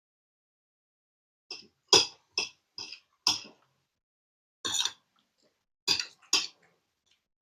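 Eating sounds at close range: about eight short, sharp clatters and smacks in two quick runs, from a spoon and plate or from the mouth.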